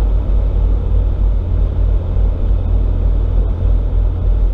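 RAM pickup truck driving at highway speed, heard from inside the cab: a steady, loud low rumble of road and engine noise.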